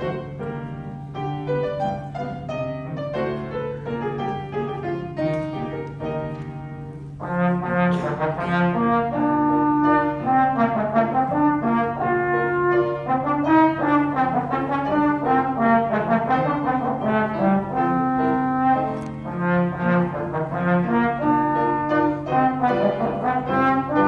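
Trombone solo with piano accompaniment. The piano plays alone for about the first seven seconds, then the trombone comes in louder with a run of held and moving notes over the piano.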